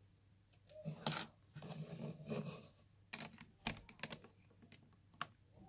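Plastic LEGO bricks being handled and pressed together: rustling and scraping with several sharp clicks as pieces snap into place on the model.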